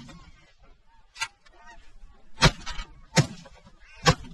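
Four shotgun shots: a lighter one about a second in, then three strong ones in quick succession in the second half, fired into a flock of Ross geese over decoys. High-pitched goose calls carry on faintly between the shots.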